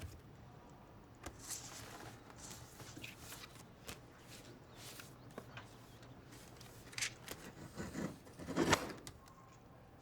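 Faint, scattered rustling and small clicks and scrapes over a low steady hum, with two louder rustling swells near the end.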